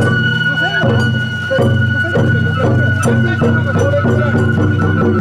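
Sawara-bayashi festival music: a bamboo flute holds one long high note over drum beats, with people's voices mixed in.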